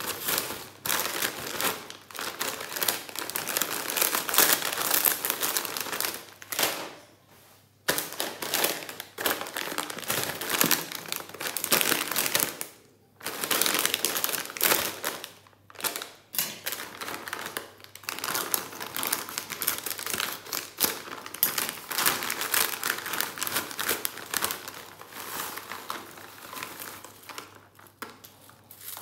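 Plastic Lay's potato chip bags crinkling as hands grip and shake them and reach in, with crisp chips rustling in the bags and in the hand. The crinkling comes in long stretches broken by a few brief pauses.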